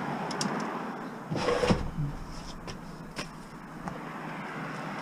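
A discarded plastic printer being handled and lifted: a rustling clatter about a second and a half in, a knock, then a few sharp clicks and taps over a low background hum of traffic.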